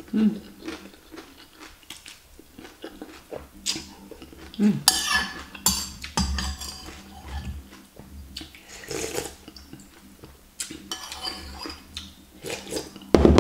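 Metal spoon clinking and scraping against a glass bowl, scooping up the last of the bakso soup, with a few louder slurps of soup in between.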